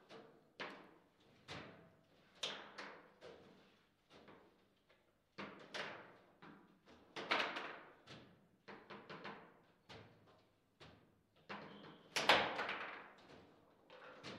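Foosball table in play: the hard ball is struck by the plastic player figures and rebounds off the table walls, with the rods knocking, in an irregular string of sharp clacks and thuds. The hardest hits come about seven and twelve seconds in.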